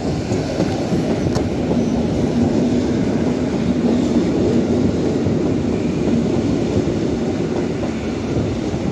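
Electric multiple unit passenger train passing close by at speed: a loud, steady rumble of its wheels on the rails.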